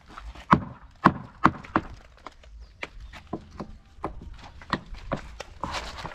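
Timber boards being struck and knocked into place: four sharp wooden blows about half a second apart in the first two seconds, then lighter, irregular knocks and clatter.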